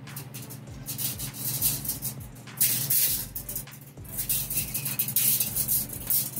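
Coil of 3/16-inch stainless steel brake line rattling and scraping as its end is worked into a 3D-printed roller straightener. The sound comes in uneven bursts, loudest a little under three seconds in and again around five seconds.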